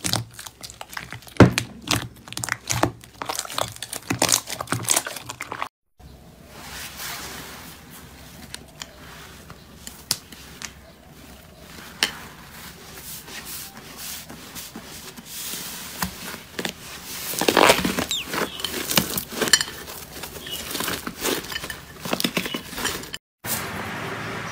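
Slime being squeezed, poked and stretched by hand, making quick sticky clicks, pops and crackles. There are short breaks about six seconds in and near the end, where one clip cuts to the next, and a denser burst of crackling past the middle.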